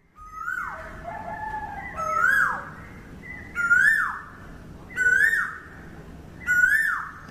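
A bird calling five times, about every second and a half, each call a short note that rises and then falls, over a faint steady outdoor background.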